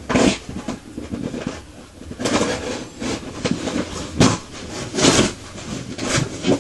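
Cardboard box being handled and pulled at by hand: a series of irregular scraping, rustling bursts with a sharp knock about four seconds in.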